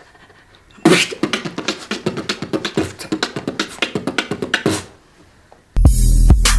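Beatboxing: quick mouth-made drum strokes for about four seconds, then a pause and a loud electronic music outro with heavy bass starts near the end.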